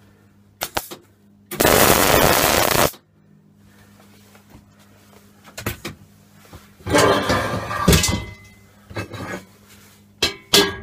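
MIG welding arc crackling in one steady burst of about a second and a half, then a second, rougher stretch of about a second and a half later on. A few sharp knocks come near the end, over a steady low hum.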